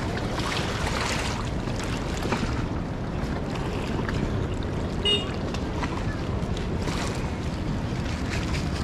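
Rushing floodwater of the swollen Narayani River, a steady roar, with wind buffeting the microphone. A brief high-pitched sound cuts in about five seconds in.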